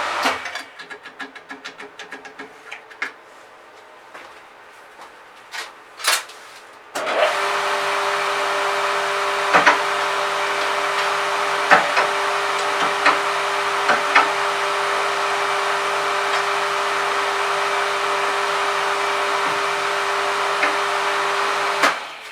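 Scattered light metal clicks and knocks. Then, about seven seconds in, a scroll-bending ('snail') metalworking machine's electric drive starts suddenly and runs steadily with a steady hum, a few sharp clicks over it, and stops abruptly near the end.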